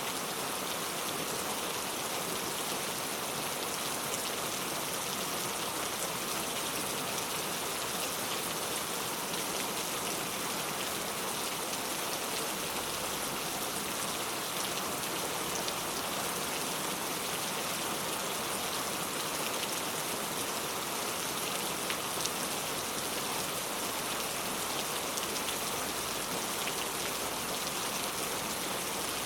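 Heavy rain falling steadily, with the dense patter of drops on surfaces.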